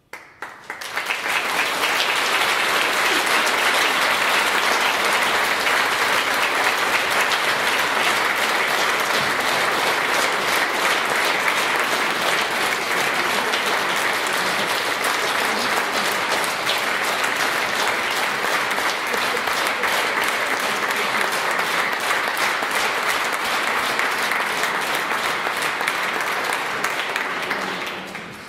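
Audience applauding: dense, steady clapping that swells in within the first second and dies away near the end.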